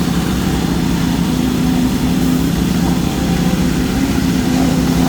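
Heavy construction machinery engine running steadily at a constant speed, a low even drone with a steady hum in it.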